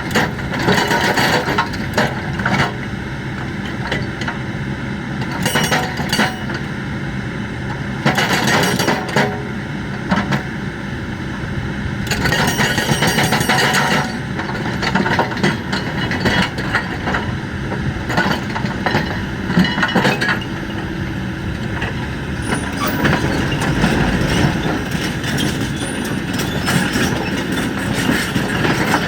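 Hydraulic breaker on a Kobelco excavator hammering in several bursts of rapid blows, over the excavator's diesel engine running steadily.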